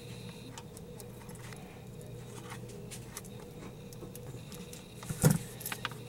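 Small metal clicks of a jump ring and clasp being worked with jewelry pliers, with a sharper click about five seconds in, over a steady low hum.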